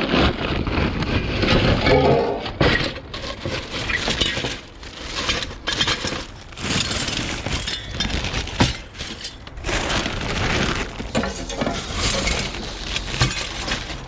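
Scrap aluminium pieces being tipped out and dropped onto a pile, a long run of metal clattering and clinking.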